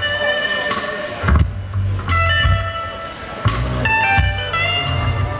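Live band playing, led by an electric guitar picking out a line of held, ringing notes over a low bass line and drum hits.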